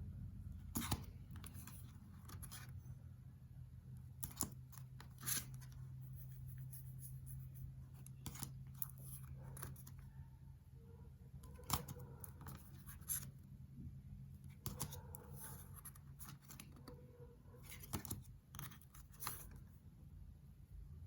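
Tarot cards being handled and flipped one by one: irregular soft snaps and slides of card stock, over a faint steady low hum.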